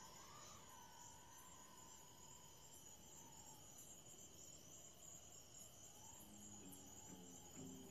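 Near silence: faint soundtrack hiss with a steady high whine. Quiet plucked bass music begins near the end.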